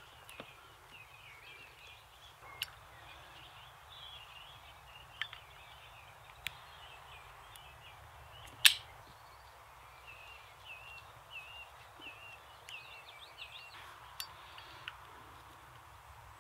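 Wild birds singing, a near-continuous run of short warbling phrases, with a few sharp clicks and one louder snap about nine seconds in from cord and wood being handled.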